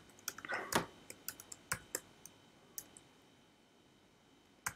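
Faint computer keyboard keystrokes: a quick run of key clicks in the first two seconds, then a few single taps spaced further apart.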